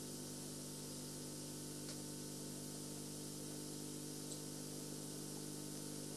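Steady hiss with a low, even hum underneath: recording noise and room tone, with two faint ticks, one about two seconds in and one past four seconds.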